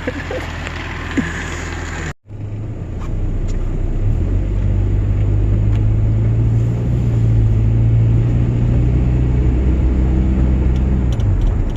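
Vehicle engine and road rumble while driving, a steady low drone. It drops out briefly about two seconds in, then comes back louder and holds steady.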